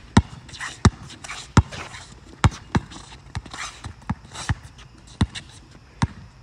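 Basketball dribbled on an asphalt court: about ten sharp bounces at an uneven pace.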